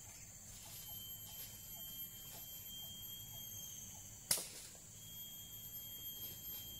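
A single sharp chop of a machete blade into a wooden pole about four seconds in, preceded by a few faint taps, over a steady high-pitched drone of forest insects.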